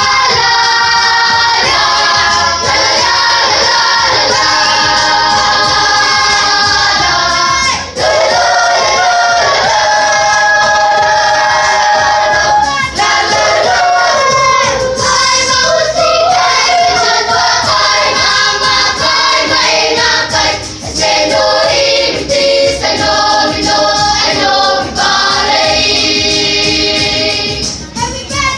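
Children's and youth church choir singing in several parts, with short breaks between phrases about a third of the way through and again near the end.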